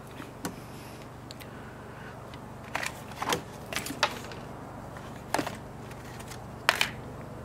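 Hands handling an iPhone 5: about seven short, sharp taps and clicks at irregular intervals, over a steady low hum.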